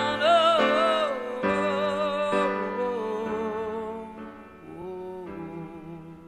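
A song ending on the soundtrack: a long held note with vibrato, then sustained chords that fade out over the last few seconds.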